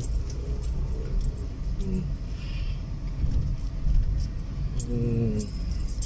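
Low, steady rumble of a car driving slowly, engine and tyre noise as heard from inside the cabin, with a few brief murmured voice fragments.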